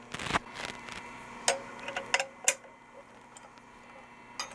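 Scattered sharp metallic clicks and clinks of steel clamp hardware being handled as the mill-table clamps are released: a few single ticks through the middle and a quick cluster near the end, over a faint steady hum.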